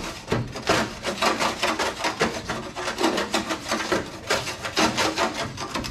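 Putty knife scraping caked old tar and dirt off a 1974 Ford Bronco's painted steel inner fender panel, in quick, uneven strokes.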